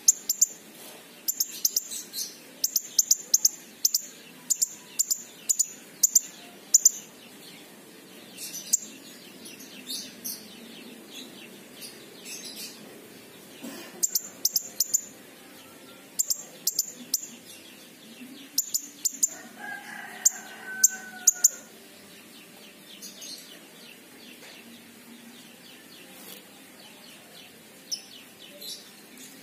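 King konin sunbird calling with high, sharp chirps in quick clusters, thinning out in the second half. About twenty seconds in, a lower, fainter call with falling notes.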